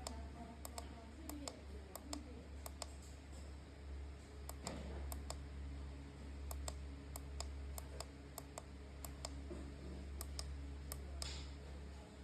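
Small push-button keys on a three-phase protector's panel clicking as they are pressed over and over to step through its parameter menu, about two clicks a second, a little irregular. A steady low hum runs underneath.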